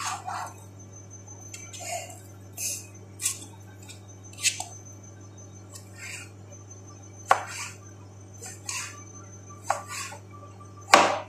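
Chef's knife chopping celery on a cutting board: irregular sharp knocks, one every half second to second and a half, the loudest near the end. A steady low hum runs underneath.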